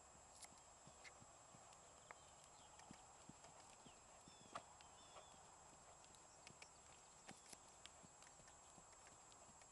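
Faint hoofbeats of a 3-year-old Hanoverian filly trotting under a rider on sand arena footing: soft scattered thuds and clicks, barely above the background hiss.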